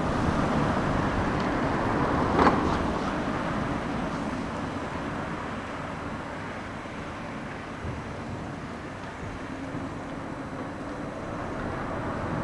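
Steady street traffic noise, with an Enoden electric train coming slowly up the street-running track. A brief sharp noise comes about two and a half seconds in.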